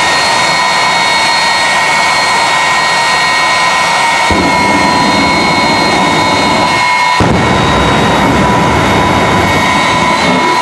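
Jet truck's turbine engine running with a steady high whine; about four seconds in a deep roar joins as the afterburner lights and throws out flame, cutting out briefly a little after seven seconds and then coming back.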